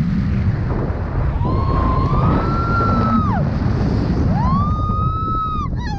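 Heavy wind buffeting the microphone in a paraglider's steep turn, with two long high screams from a passenger: each rises, holds for a second or two, then falls away. Near the end the voice breaks into shorter wavering cries.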